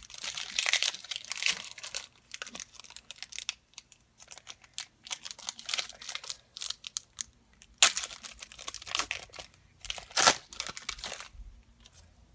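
Trading-card pack wrapper crinkling and tearing as it is opened, in irregular rustling bursts, with two sharper rips about eight and ten seconds in.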